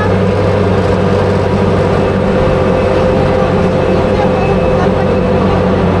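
Daimler Ferret Scout Car's Rolls-Royce B60 straight-six petrol engine running steadily under way, a constant low drone.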